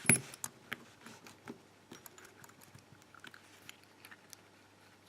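Small metallic clicks and taps from handling a padlock while working its plug out of the body with a follower. One sharper click cluster right at the start, then scattered light clicks.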